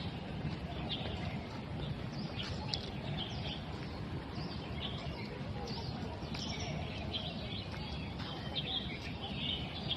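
Small birds chirping repeatedly, short high calls scattered throughout, over steady outdoor background noise.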